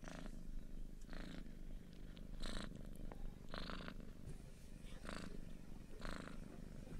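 A cat purring close up, a steady low hum with a soft rasping swell about once a second as it breathes in and out.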